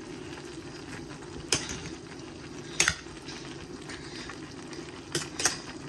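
A thick vegetable curry simmering with a steady bubbling in a steel pot, while a metal spoon stirs it and clinks against the pot a few times: about one and a half and three seconds in, and twice near the end.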